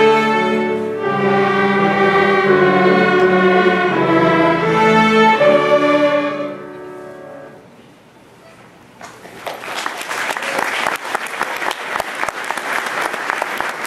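Beginning student string orchestra of violins and violas playing the closing phrases of a simple tune in unison, the last note ending about six seconds in and ringing away. After a short hush the audience breaks into applause about nine seconds in.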